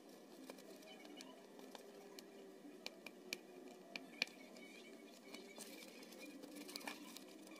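Sheet of aluminium foil crinkling faintly as hands press and fold it, with scattered sharp crackles, the loudest about four seconds in.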